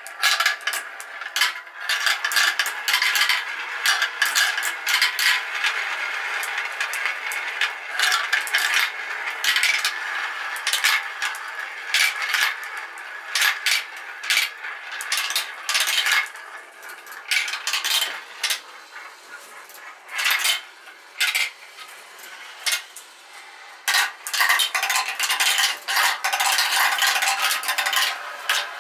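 Marbles rolling and clattering through a plastic marble run: a steady rolling whirr in the funnel bowls, broken by many sharp clicks and clacks. The clatter thins out for a few seconds a little past the middle, then picks up again near the end.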